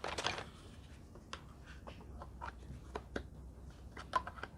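Light handling of a plastic massage gun and its round attachment head: scattered small clicks and rubbing as the head is fitted into the gun, the sharpest click a little past four seconds in.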